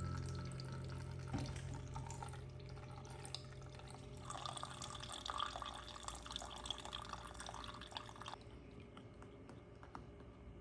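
Water running and dripping, with a dense splashy patter from about four seconds in that stops suddenly a little past eight seconds.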